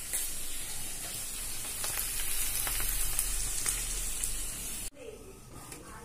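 Carne de sol frying in a pan: a steady sizzle with a high hiss and a few faint clicks, cutting off suddenly about five seconds in, after which only a quieter background remains.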